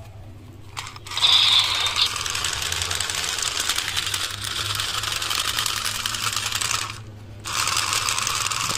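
Battery-powered Spider Gun toy revolver firing: a rapid, rattling clatter that starts about a second in, stops briefly near the end, then starts again.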